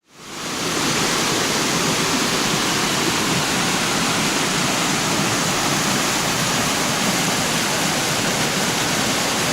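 Small creek waterfall cascading over rock in a steady, unbroken rush, rising in over the first half second.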